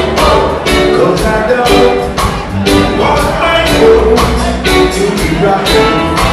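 Live reggae band in concert: drums keeping a steady beat of about two hits a second under bass, guitar and keyboards, with singing over the top. Loud and roomy, as heard from the audience in the hall.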